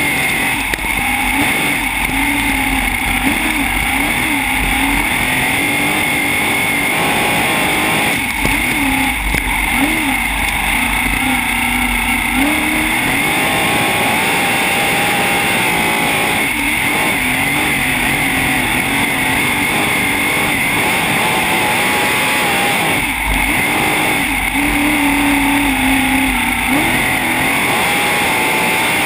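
Sprint car's V8 engine heard from on board, running hard and loud on the throttle. Its pitch rises and falls as the driver lifts and gets back on the power, with brief dips a few times.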